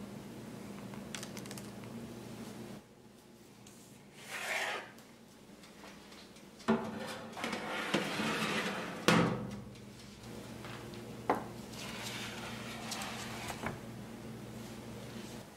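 A metal baking tray slid over an oven rack: scraping, with sharp knocks about a third of the way in, near the middle, and again a couple of seconds later. Under it runs a low steady hum that drops out for a few seconds early on and then returns.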